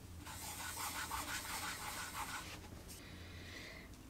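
A bare palm rubbing back and forth over freshly sprayed, damp birch plywood, a dry swishing of quick strokes about four a second for about two and a half seconds, then a faint hiss near the end.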